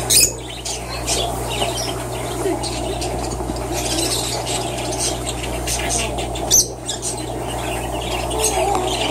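Pet-shop background of birds chirping and squawking over a steady low hum, with two short, louder sharp sounds: one just after the start and one about two-thirds of the way through.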